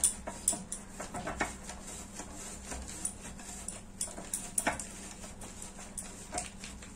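Cheese being grated on a flat stainless-steel grater: irregular scraping strokes with light metallic clicks.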